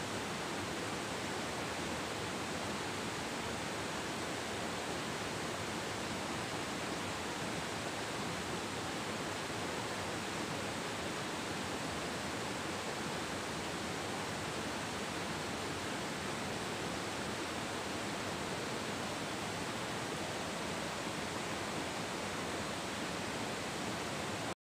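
River water rushing steadily over and around boulders, an even unbroken roar of flowing water.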